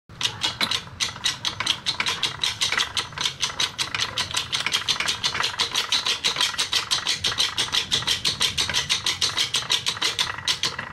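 Hydraulic press pump running in a rapid, even pulse of several clicking strokes a second, driving the press brake punch down to bend a steel strip in the V-die.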